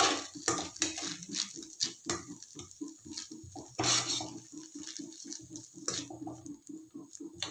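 A metal spoon scraping and knocking around a nonstick pan while vermicelli noodles and vegetables are stirred to work in a stiff lump of masala. The scrapes come several a second, with a few louder knocks now and then.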